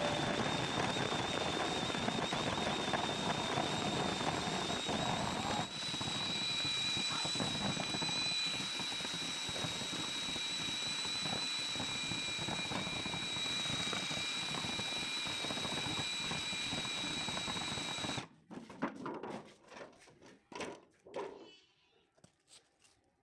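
Handheld electric drill running steadily with a high whine, cutting off abruptly about 18 seconds in, followed by a few faint knocks.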